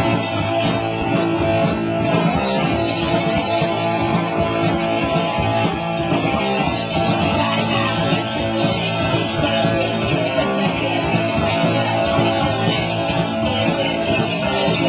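Punk rock band playing live: electric guitar, bass and drums in a steady, loud instrumental passage with no singing.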